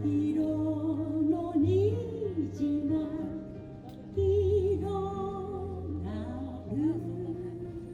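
Music: a song with a wavering sung melody over long held low notes.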